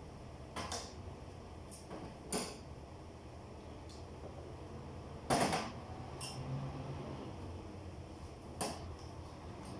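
A handful of sharp clicks and knocks, the loudest about five and a half seconds in, over a low steady hum.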